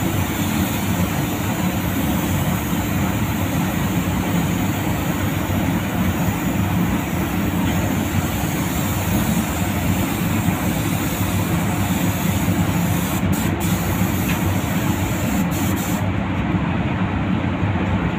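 Steady hiss of compressed air from a gravity-feed spray gun laying the first heavy coat of grey metallic car paint, over a steady low rumble. The hiss drops away near the end when the gun stops.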